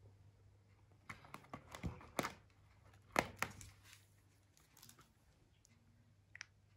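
A cat's claws scratching and clicking as it twists and scrabbles on a tiled floor against an upholstered footstool: a quick run of faint scratchy clicks and rustles in the middle, with one more click near the end.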